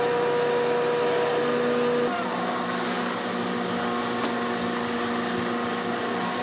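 Steady machinery hum with a whine of held tones from a sardine purse-seine fishing boat's deck and engine machinery as the net is hauled; the pitch of the whine shifts to a lower set of tones about two seconds in.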